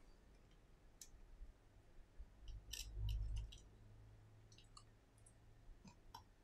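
Faint scattered clicks and taps from an iPhone XS being handled and opened by hand, its loose display and frame knocking lightly, with a soft low thud about three seconds in.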